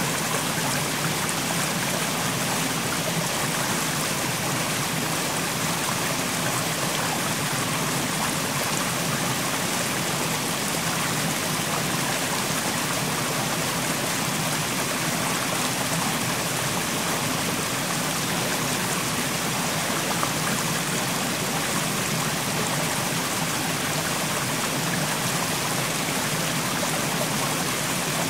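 Mountain stream flowing over rocks: a steady rush and babble of water.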